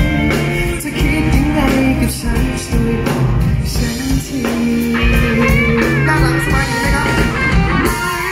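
Live pop-rock band playing an instrumental break, with guitar and drums, heard loud through the PA between sung lines.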